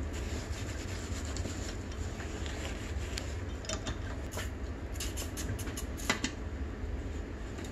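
Light metallic clicks and clinks of hand tools being handled against a spoked dirt-bike wheel rim while a tyre is being fitted, the sharpest click about six seconds in, over a steady low hum.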